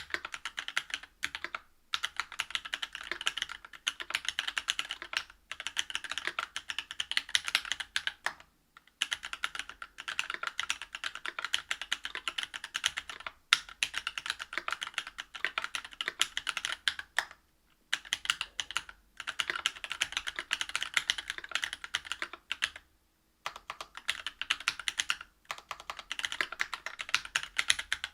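Fast, steady typing on a Whale 75 mechanical keyboard with stock Cannonkeys Lilac Linear 62g switches, a brass plate and GMK doubleshot ABS keycaps. The rapid keystrokes have no tactile click and are broken by a few brief pauses.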